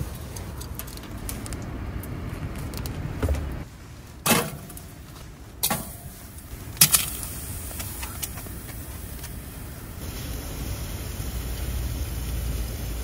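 Several sharp clicks and clinks of cookware being handled, then from about ten seconds in a steady hiss as raw squid tentacles start to sizzle in a dry stainless pan on a wood stove, over a low steady rumble.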